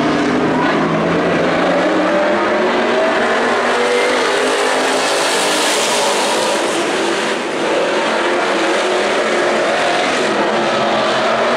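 A pack of IMCA Stock Cars racing on a dirt oval, their V8 engines running together in a loud, steady, dense blare of overlapping engine notes, with more hiss and high-end noise around the middle as the cars pass.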